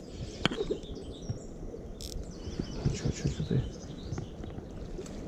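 Birds chirping over close rustling and scattered knocks.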